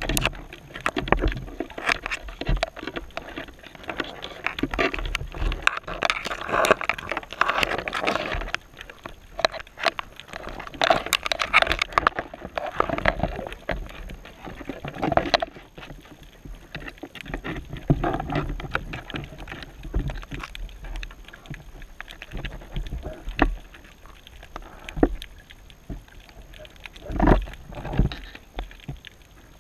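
Underwater sound of shallow surf around the camera housing: an uneven rush of surging water full of clicks and knocks, swelling in strong surges twice early on and settling quieter later. A few sharper, louder knocks come near the end.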